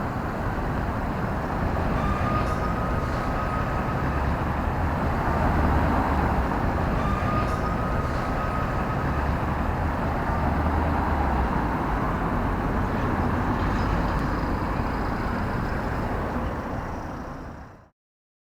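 Street traffic: a steady rumble of passing cars and engines, with a faint thin high tone twice, fading out to silence near the end.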